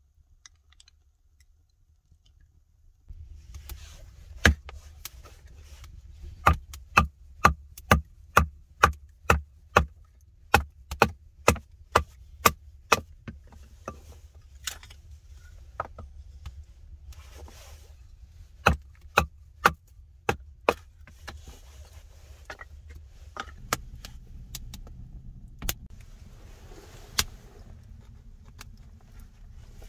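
Wood being chopped into kindling: sharp, separate chops, about two a second in a long run, then a short cluster and a few scattered strokes later.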